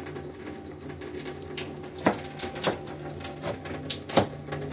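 Four sharp, irregular knocks of kitchen work on a counter or cutting board over a steady low hum, the loudest about two seconds in and about four seconds in.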